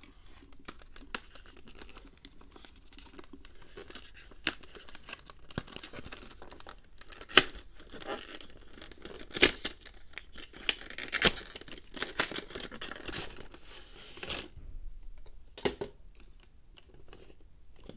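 Cardboard box and plastic packaging being opened and handled: rustling, scraping and crinkling of card and clear plastic, broken by many sharp snaps and taps. The loudest snaps come about seven and nine seconds in.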